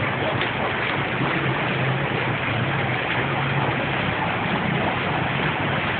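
An engine running steadily with a low hum, under a constant wash of noise.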